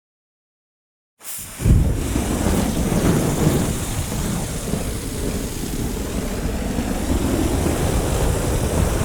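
A large fire burning: a dense, rumbling rush with crackle that comes in suddenly after about a second of silence, then holds steady.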